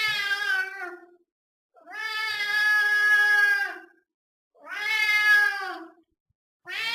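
Domestic cat meowing: repeated drawn-out meows with short pauses between, the middle one the longest at about two seconds. Each meow drops in pitch at its end, and another begins just at the end.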